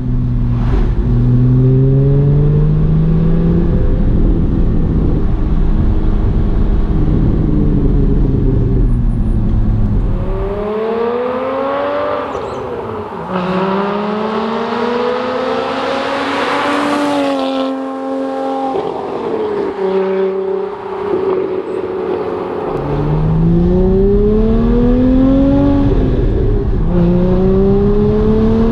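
Porsche GT4's flat-six running through a Soul valved exhaust with catted headers, valves open, accelerating hard up through the gears, its pitch climbing and dropping back at each shift. It is heard first from inside the cabin. From about ten seconds in it is heard from the roadside as the car comes up and passes, its pitch falling as it goes by. Near the end it is in the cabin again, accelerating through further shifts.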